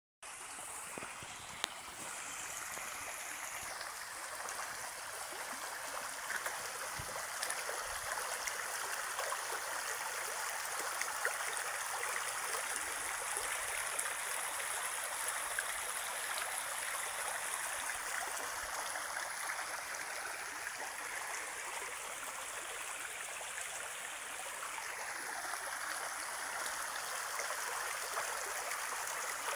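Steady rush of flowing water, an even hiss that starts abruptly and runs on without a break.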